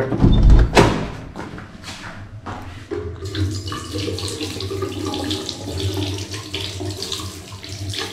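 A couple of loud handling thumps, then from about three seconds in a water tap running steadily into a bathroom sink.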